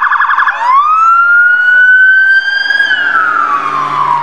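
Police car siren switching from a fast warbling yelp to a wail: the tone climbs slowly for about two seconds, then begins to fall. A faint low hum comes in beneath it in the second half.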